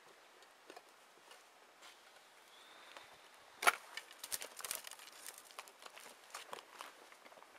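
Footsteps through dry grass and brush: faint, irregular rustling and crackling that begins about three and a half seconds in.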